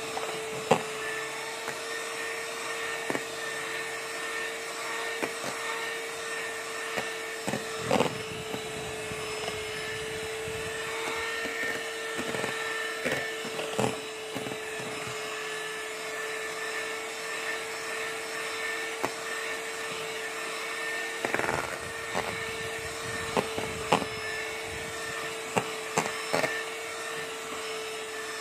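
Electric hand mixer running steadily with a constant whine as it beats boiled icing, with occasional sharp clicks as the beaters strike the stainless steel bowl.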